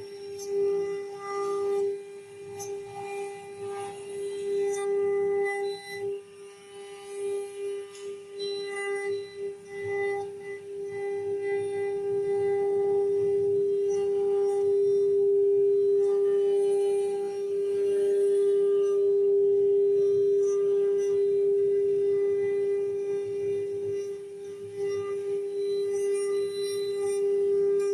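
CNC router spindle running with a steady high whine while cutting; the cutting noise under it comes and goes for the first dozen seconds, then holds louder and steady.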